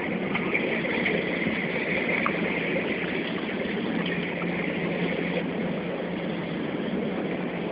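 A river boat's engine running steadily with a low even hum, mixed with a constant wash of water along the hull.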